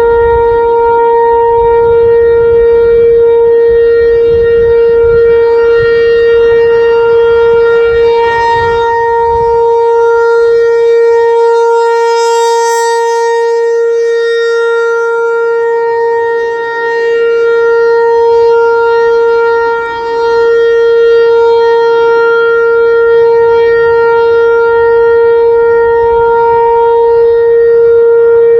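Outdoor tornado siren sounding a loud, steady tone that holds one pitch throughout, its level swelling and dipping slightly.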